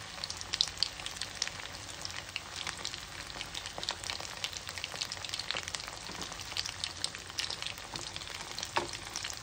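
Batter-coated prawns deep-frying in hot oil in a small aluminium kadai on a low flame: a steady sizzle full of small crackles and pops, with a sharper click near the end.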